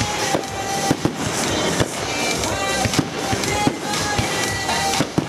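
Aerial firework shells bursting with sharp bangs, several times a second, over music playing.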